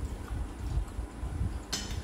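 Eating sounds: fingers mixing rice and curry on steel plates, and chewing, with one sharp click near the end, over a low rumble.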